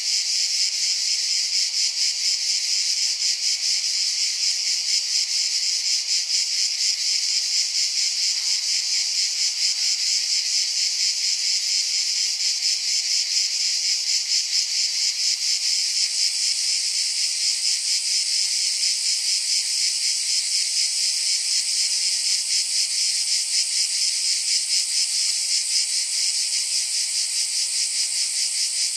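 A dense insect chorus: a fast, steady, high-pitched chirring that holds unchanged throughout.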